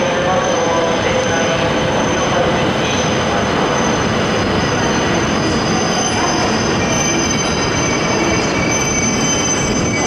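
Coupled E5-series Hayabusa and E6-series Komachi Shinkansen train moving past the platform: steady running noise with a high whine throughout, and further high tones joining about halfway through.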